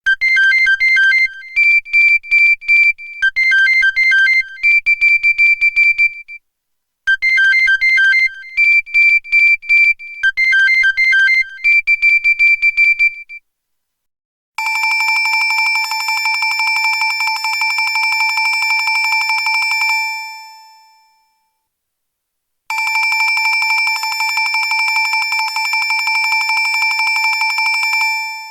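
Motorola Z6M ROKR phone's speaker playing polyphonic ringtones from its Qualcomm CMX synth chip: a short melody of quick electronic notes played twice, then a different ring, a long fast-pulsing electronic tone, sounding twice for about five seconds each.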